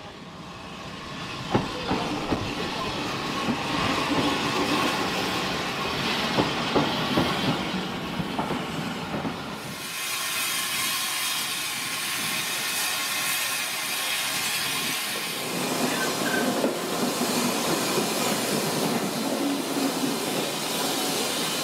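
Preserved steam locomotive working a train, the sound building over the first two seconds, with sharp knocks and clatter over a steady rush. About ten seconds in it changes suddenly to a steadier hiss of steam.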